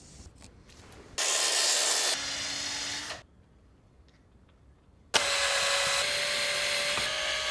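Power drill running into timber in two runs of about two and three seconds, a steady whine that drops in pitch and level partway through the first run; drilling pilot holes or driving screws to join the lath frame.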